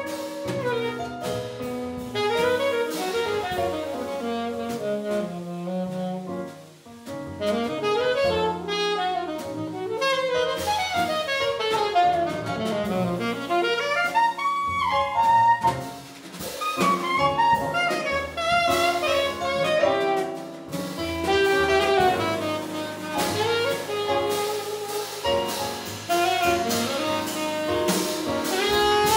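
Jazz quartet playing live: a saxophone leads with quick running melodic lines over keyboard, upright double bass and a drum kit with cymbals. The music drops back briefly about seven seconds in.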